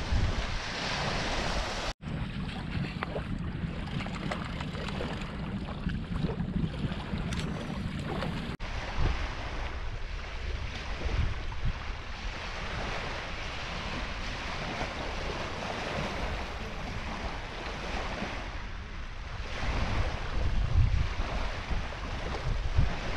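Small lake waves washing onto the shore, with wind rumbling on the microphone.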